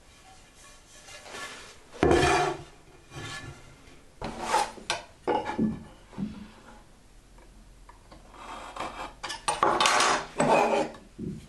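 Wood rubbing and scraping by hand in several short, irregular bursts, the longest and loudest near the end.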